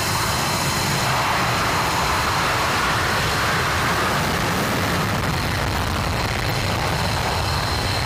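Twin Pratt & Whitney F100 turbofans of an F-15 in afterburner on the takeoff roll: a steady jet roar.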